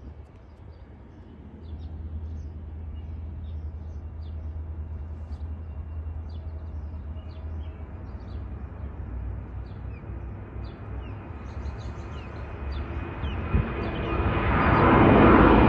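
Airbus A321-231 jet airliner taking off, its IAE V2500 turbofans at takeoff power: a low distant rumble that swells near the end into a loud roar as the jet climbs out. Short bird chirps sound throughout.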